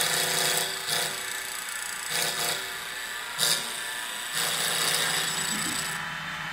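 Stepper motors of a mini CNC wood lathe driving the tool carriage in short jog moves: five separate bursts of whining, the last about a second and a half long.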